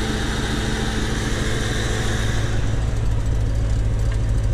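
The 1993 Corvette's LT1 V8 idles roughly with a misfire: it is not running clean, and the rattle shakes the car, though the RPMs hold steady. About three seconds in, the sound turns deeper and a little louder. The misfire comes from the plug wires for cylinders 6 and 8 being swapped.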